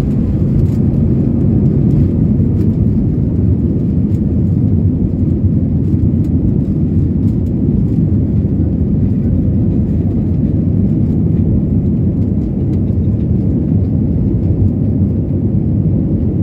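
Airbus A320 jet engines at takeoff thrust, heard from inside the passenger cabin as a loud, steady, low rumble while the airliner lifts off and climbs.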